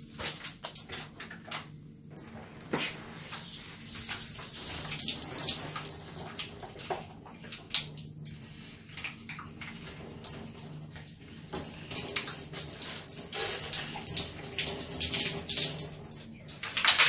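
A child gulping and slurping water from a squeezed plastic water bottle held at the mouth: irregular gurgles and many small clicks, getting louder and busier in the last few seconds.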